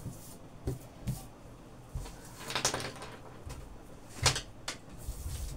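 Scattered light knocks and clicks of scissors and cut sequined velvet being handled and set down on a wooden tabletop, with a brief fabric rustle in the middle; the sharpest knock comes a little past four seconds in.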